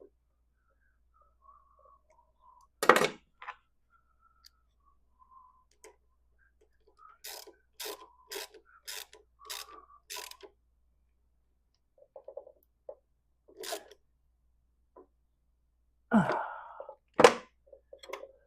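Hand-tool work on metal parts: a sharp knock, then a run of about eight quick taps, and two loud knocks near the end, with faint whistling in between.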